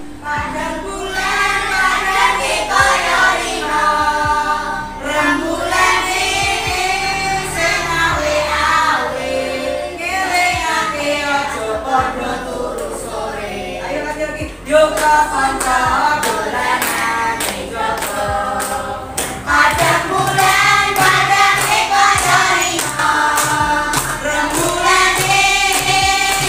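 A class of schoolchildren singing a song together, clapping along in time.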